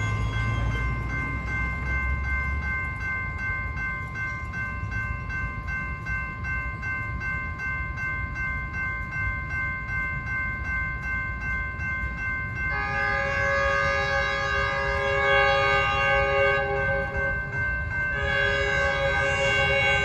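Grade-crossing warning bell ringing steadily over a low rumble; about 13 seconds in, an approaching Metrolink train's locomotive horn sounds a long chord-like blast, and a second long blast begins about 18 seconds in, the horn warning for the crossing.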